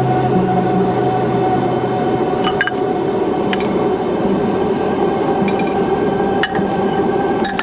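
Steady roar of a blacksmith's forge, with a few light metallic clinks.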